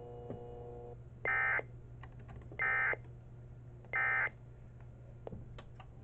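Emergency Alert System end-of-message (EOM) signal: three short, identical bursts of buzzy two-tone SAME digital data, about 1.4 seconds apart, marking the close of the alert.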